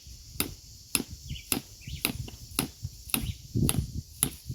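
A series of sharp, evenly spaced knocks, about two a second, over a steady high hiss.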